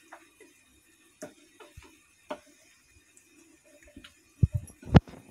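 Metal spoon stirring a thin batter in a glass bowl, with scattered light clicks and taps of the spoon against the glass, and a few louder, duller knocks near the end.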